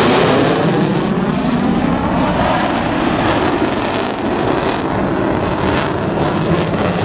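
Mitsubishi F-15J fighter jet's twin F100 turbofan engines, loud jet noise as it passes close overhead, with a sweeping phasing whoosh. The sound loses its hiss after about a second as the jet banks away.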